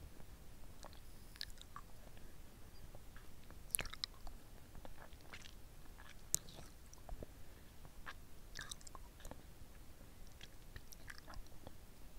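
Close-miked mouth sounds of sucking on a hard-candy lollipop: wet smacking and small clicks of the candy in the mouth, with two sharper clicks about four and six seconds in.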